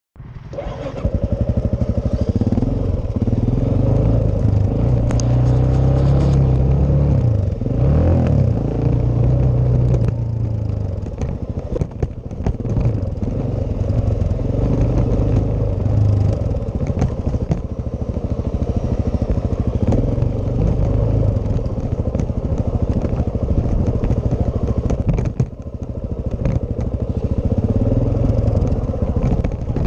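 Suzuki DR-Z400S single-cylinder four-stroke engine running under way on a rough dirt track, the revs rising and falling with throttle and gear changes. Scattered clattering knocks run through it.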